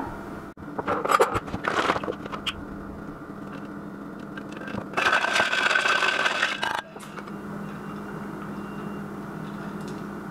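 Spoon stirring iced coffee in a stainless steel tumbler: a few clinks of ice against the metal early on, then about two seconds of steady scraping stir around five seconds in.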